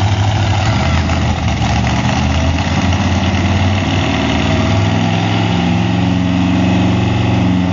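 The 2750 hp Corvette's V8 running loud at a steady idle, its pitch climbing gently over the last couple of seconds.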